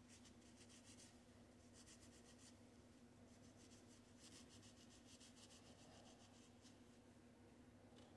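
Faint scratchy scrubbing of a Scotch-Brite pad on an HO-scale locomotive's metal wheels, in several short spells of quick strokes, over a low steady hum.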